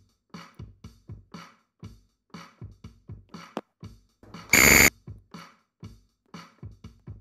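Quiz countdown-timer sound effect: a quick, even electronic ticking beat, about three ticks a second. About four seconds in, a loud buzzer sounds for half a second as the timer hits zero to mark time up, and then the ticking goes on.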